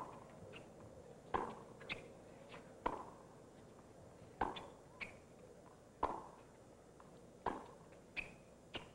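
Tennis rally on a hard court: a ball struck back and forth by racquets. Sharp pops come roughly every second and a half, each stroke paired with the ball's bounce in between.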